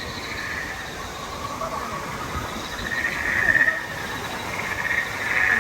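Rapid, trilling frog-like chirps over steady background noise, louder in a stretch about three seconds in and again near the end.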